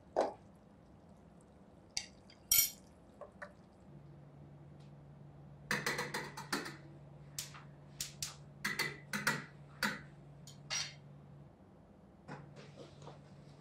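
Stainless steel pots, lids and utensils clinking and clanking on a gas stove as food is cooked: a clank near the start, a few more around two to three seconds in, then a run of clinks from about six to eleven seconds. A faint low hum runs underneath.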